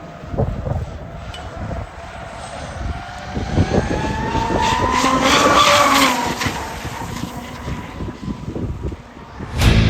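RC model speedboat engine running fast as the boat passes, its whine rising in pitch and loudness to a peak about halfway through, then falling away.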